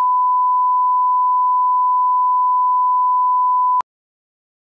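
Bars-and-tone reference tone: one steady, pure, unwavering beep that cuts off abruptly near the end.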